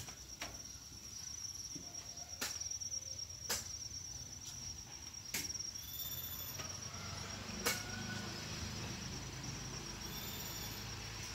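Many celiring crickets in farm rearing boxes trilling steadily at a high pitch, with a few other cricket calls at different pitches coming and going. A handful of sharp knocks break in now and then.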